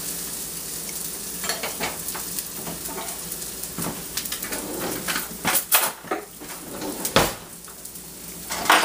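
Chopped bacon, green onion and garlic sizzling in a stainless steel skillet while being stirred. A spatula and dishes clink and knock against the pan now and then, with the sharpest knocks about seven seconds in and near the end.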